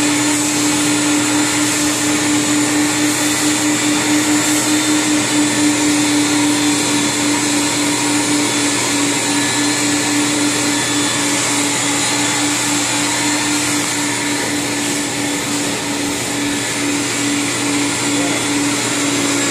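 Carpet-cleaning extraction wand and its machine's vacuum running steadily: a loud constant hum over a rushing hiss of suction, pulsing slightly as the wand is worked over the carpet.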